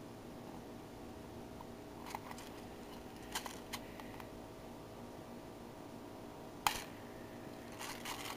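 Small flathead screwdriver prying at the plastic shell of a high-capacity airsoft magazine to open its BB hatch: scattered short clicks and scrapes, the loudest a single sharp click about two-thirds of the way through, over a steady background hum.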